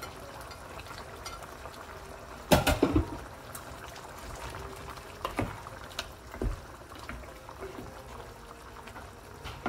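Chicken curry simmering in a pot and being stirred with a wooden spoon, with a steady bubbling hiss. A few sharp knocks come through, the loudest about two and a half seconds in.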